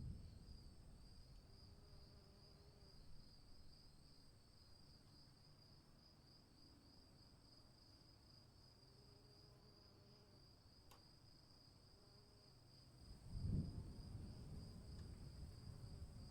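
Crickets chirping in a steady, fast pulsing trill, with a low rumble swelling up near the end.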